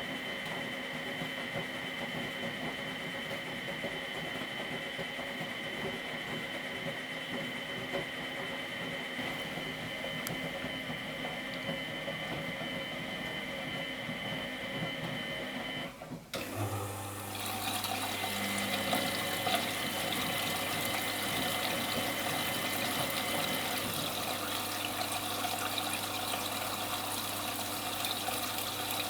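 Miele Professional WS 5426 washing machine running with a steady whine. About halfway through, the whine cuts out and water starts rushing in through the inlet valve, with a low electrical hum alongside the steady flow.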